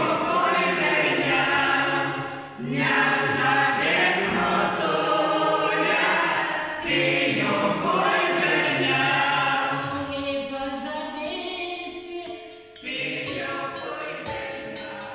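A small mixed choir of women's and men's voices singing a Lithuanian folk song together in long phrases, with short breaks between them. The singing grows quieter over the last few seconds.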